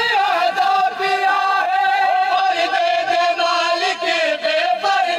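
Men chanting a noha, a Shia mourning lament, in long held notes that waver slightly in pitch.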